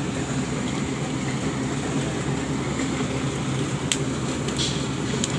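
Rice combine harvester running steadily with a constant low engine hum, and a sharp click about four seconds in.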